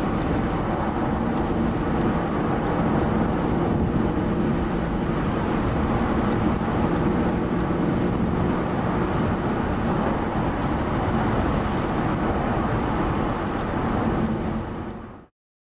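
Inside the cabin of a 2001 BMW 740i (E38) at road speed: a steady hum from its V8 engine together with tyre and wind noise. It fades out quickly and cuts off just before the end.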